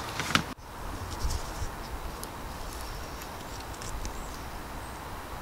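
Low, steady background noise with a few faint light clicks from a glow plug being handled in a glow plug igniter.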